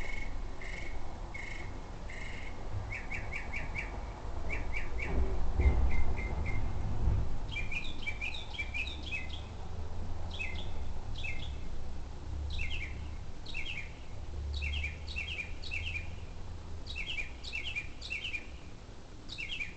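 An unidentified bird calling repeatedly. It starts with single short whistled notes about a second apart, shifts to quick runs of three or four notes, then from about seven seconds in gives repeated groups of short falling chirps. A low rumble runs underneath, loudest about five to seven seconds in.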